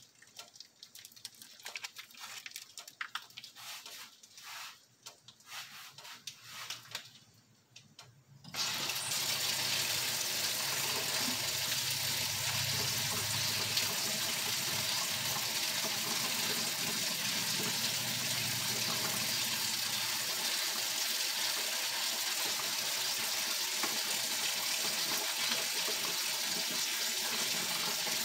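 Faint scattered handling sounds, then about eight seconds in a kitchen tap is turned on and water runs steadily and loudly.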